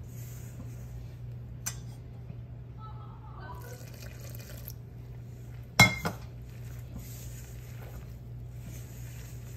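Water poured from a small stainless steel bowl into a bowl of flour and butter as dumpling dough is mixed by hand. About six seconds in comes a sharp metallic clank of the steel bowls with a brief ring and a smaller knock right after, over a low steady hum.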